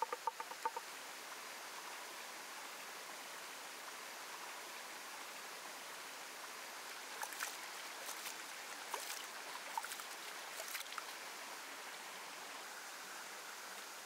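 Steady rush of a shallow mountain stream, with a few short scrapes and clicks of a steel cleaver against a ceramic bowl between about seven and eleven seconds in, as minced ginger is scraped off the blade into the bowl.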